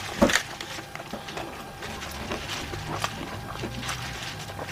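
Chopsticks clicking and tapping against black plastic takeout trays while picking up sushi, in irregular small taps with one louder knock just after the start.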